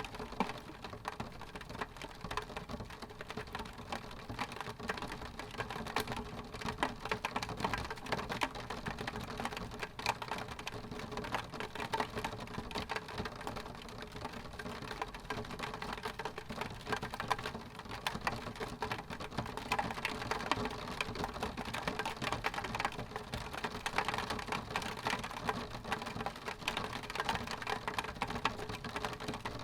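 Rain pattering on window glass: a steady dense stream of small drop taps on the pane.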